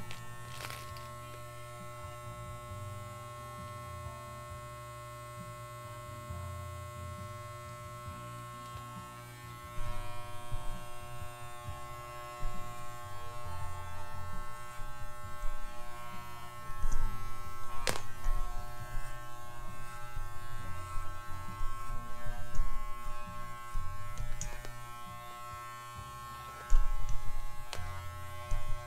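Corded electric dog grooming clippers running with a steady buzzing hum while trimming a miniature schnauzer's coat. From about ten seconds in the sound turns louder and uneven as the blade works through the fur, with a sharp click partway through.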